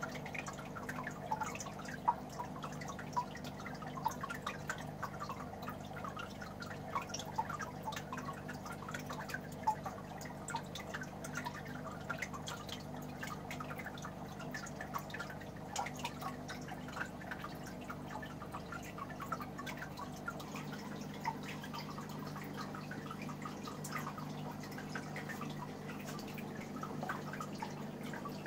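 Aquarium water dripping and splashing: many small, irregular drips and bubble pops over a steady low hum from the tank's filter.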